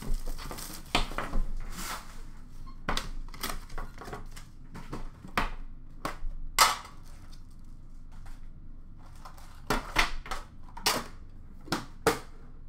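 Cardboard box and metal trading-card tin being handled and opened, with irregular clacks and knocks and papery rustling. The handling goes quiet for a couple of seconds past the middle, then the knocks pick up again.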